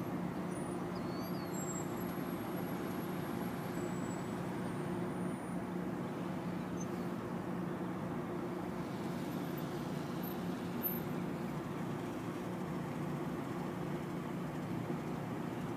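Steady low mechanical hum, like an engine or machinery running, with an even hiss behind it.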